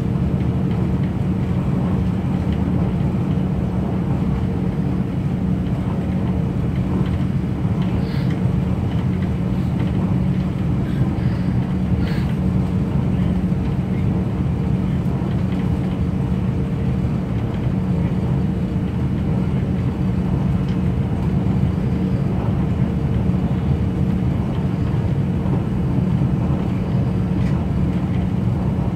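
Minuetto diesel multiple unit running at speed, heard from inside the passenger cabin: a steady drone with a low hum and rumble, and a couple of faint ticks partway through.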